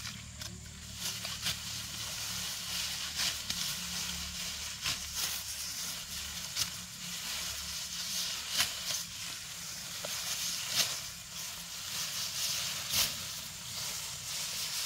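Food frying in a pan: a steady sizzling hiss with frequent sharp pops and crackles.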